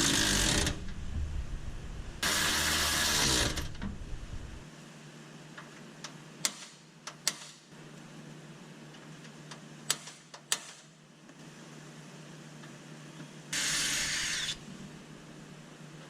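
Power drill with a 9/64-inch bit boring holes through sheet metal in short runs of about a second each: twice in the first few seconds and once more near the end, with a few light clicks and taps in between.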